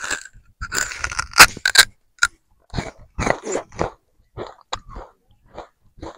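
A person chewing pieces of peeled raw sugarcane, with irregular crunching bursts; the loudest comes about a second and a half in.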